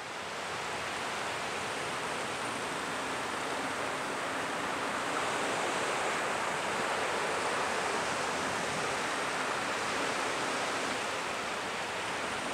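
Shallow ocean waves washing up over a sandy beach: a steady hiss of surf.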